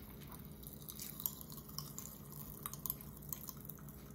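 Popping candy crackling in open mouths: faint, irregular sharp pops and clicks.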